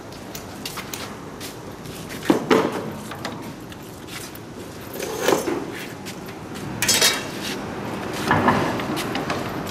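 Metal clanking and scraping as a large steel circular saw blade is handled on a saw blade grinding machine, with about four loud clatters and lighter clinks between them.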